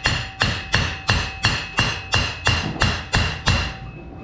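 Hammer blows on steel, about three a second and each with a metallic ring, driving a seized shaft out through the bearing and wheel of an AMF 82-30 vertical ball lift. The blows stop about three and a half seconds in.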